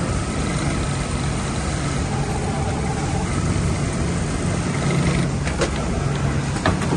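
Vitoni automatic pocket-flap sewing machine running its template cycle: a steady mechanical hum, with a few sharp clicks about five to seven seconds in.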